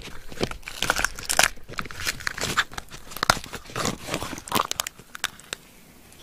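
Shell of a soy-marinated raw mud crab cracking and crunching as hands pry the top shell off: a quick run of small sharp cracks and tearing that stops about five and a half seconds in.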